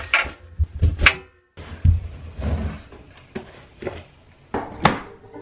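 Handling noises of loading a front-loading washing machine: clothes rustling in the drum, with several sharp knocks and clicks, the loudest near the end.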